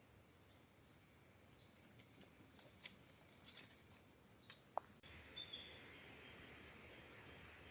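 Quiet rainforest ambience with faint, high-pitched wildlife chirps, giving way about five seconds in to a steady faint hiss.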